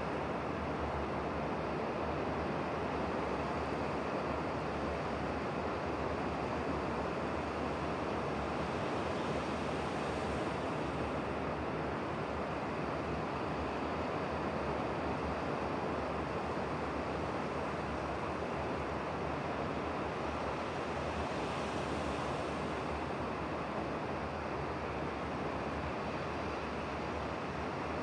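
Steady wash of sea surf on a stony shore: an even rushing hiss that brightens twice, as waves swell and break.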